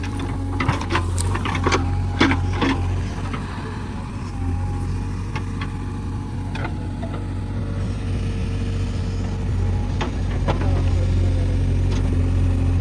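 JCB 3DX backhoe loader's diesel engine running steadily under work, with sharp knocks and clanks scattered over it, most of them in the first couple of seconds. The engine grows a little louder over the last few seconds.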